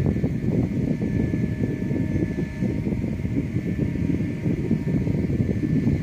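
Wind buffeting the microphone in an uneven low rumble, over a faint steady hum from a running oil-well pumpjack's drive.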